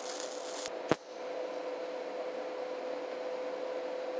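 TIG welding arc tacking a steel nut to square tube: a steady hiss with a faint steady hum, broken about a second in by a short dip and a sharp click before it carries on.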